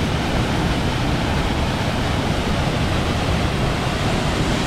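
Amnicon River waterfall running at high flow: a loud, steady roar of falling water, heard up close.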